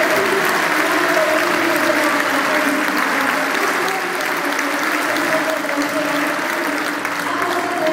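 Large crowd applauding steadily, with voices mixed in under the clapping.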